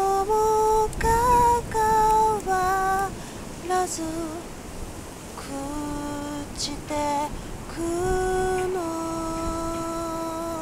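A woman singing a slow melody in held notes, the phrases broken by short pauses. It ends on a long held note that steps down once near the end.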